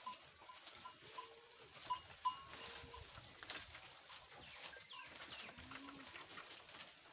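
Goats browsing on leafy branches: leaves rustling and crackling as they are pulled and torn, with a few short low calls and small repeated chirps behind.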